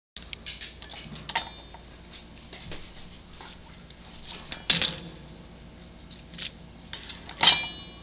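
Scattered clicks and taps, then two sharp knocks on a stainless steel bowl, one a little before the middle and one near the end, each leaving a brief metallic ring, as an African grey parrot wrestles a stuffed toy against the bowl on its perch.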